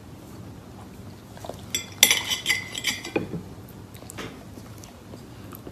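Metal knife and fork clinking and scraping on a plate, a ringing clatter about two seconds in, followed by a few softer knocks.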